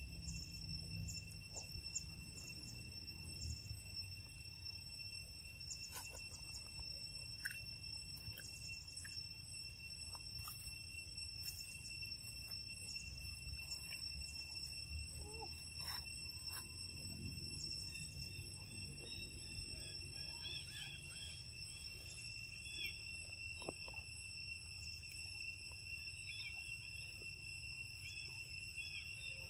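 Steady high insect trilling over a low outdoor rumble, with scattered soft clicks and smacks as a monkey eats papaya.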